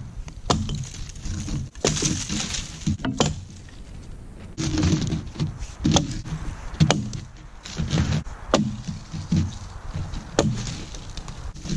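Axe strikes into a small tree: about half a dozen sharp chops at uneven intervals, with the wood cracking as the sapling gives way.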